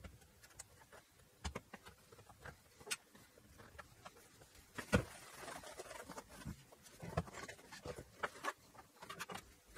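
Faint, scattered clicks, taps and short scrapes as a stereo amplifier's perforated metal top cover is put back on and fastened with a screwdriver. The sharpest tap comes about five seconds in.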